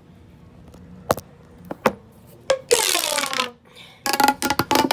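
Ribbed plastic pop tube being stretched and squashed. It gives a few single sharp pops, then a rasping run of clicks as the ribs snap open, and a dense burst of rapid clicks near the end.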